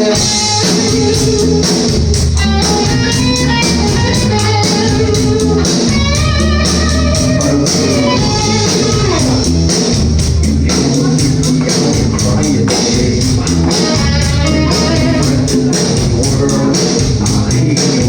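Band music: guitar with bass and drums keeping a steady beat.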